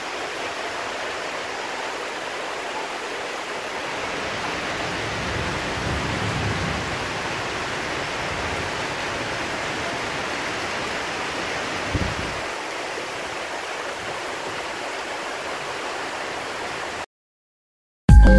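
Heavy rain pouring down onto a flooded street, a steady hiss of falling rain and running water. It cuts off suddenly about a second before the end.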